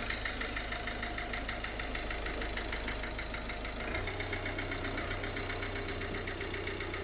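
Ford Connect diesel engine idling just after start-up, with a steady rhythmic knock. The mechanic traces the knock to one cylinder and takes it for piston knock, though it could also be injector knock.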